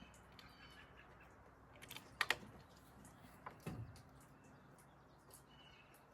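Suppressed Benjamin Armada PCP air rifle being shot and handled while zeroing its scope: a sharp double snap about two seconds in, then two softer knocks at about three and a half seconds. Faint bird chirps come and go.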